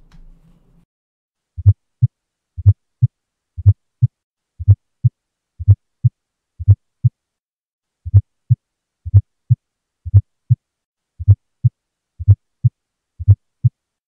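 Recorded heart auscultation with an S4 gallop: low, dull thumps in close pairs about once a second, with a slightly longer gap about seven seconds in. The S4 falls so close before S1 that it almost sounds like two S1s, the "stiff wall" rhythm that signals a stiff ventricle, which a new S4 indicates is from myocardial ischemia.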